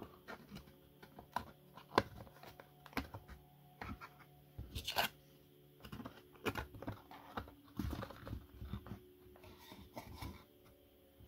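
Thin laser-cut plywood kit parts clicking and tapping as they are pressed and wiggled into their slots and tabs, in irregular light knocks. The sharpest come about two and five seconds in.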